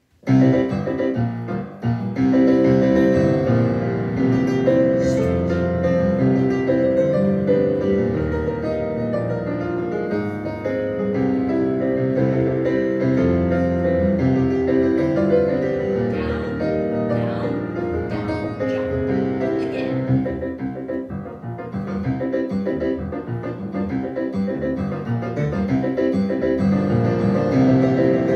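Solo piano playing ballet-class accompaniment for a plié and relevé exercise, starting suddenly about half a second in.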